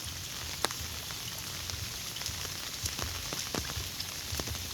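Heavy rain falling steadily, a even hiss with scattered sharp drop hits close by.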